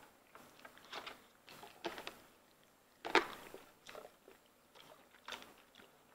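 Faint close-up eating sounds: scattered chewing and wet mouth clicks while eating lobster and garlic noodles, the loudest about three seconds in.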